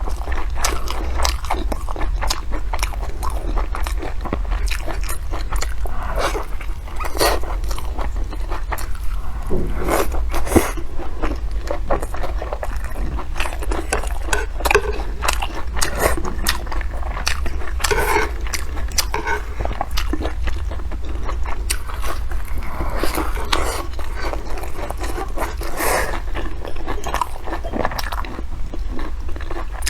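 Close-miked eating sounds: biting and chewing with irregular crunchy, wet mouth clicks, over a steady low hum.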